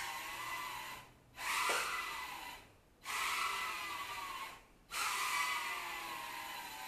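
Micro quadcopter's small brushed motors and propellers whining, the pitch wavering up and down as the throttle changes. The sound drops out briefly three times: about a second in, near three seconds, and just before five seconds.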